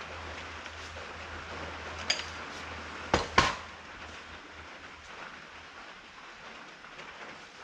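A few light metallic knocks and clinks: one about two seconds in, then two sharper ones in quick succession a little after three seconds, over a faint low hum.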